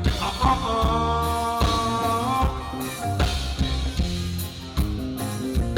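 Live band playing an upbeat song, with bass and drums keeping a steady beat and a long held melodic note over roughly the first two and a half seconds.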